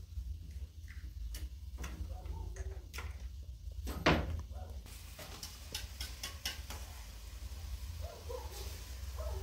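Scattered light clicks and taps of eggs and dishes being handled in food preparation, with one louder knock about four seconds in, over a steady low hum.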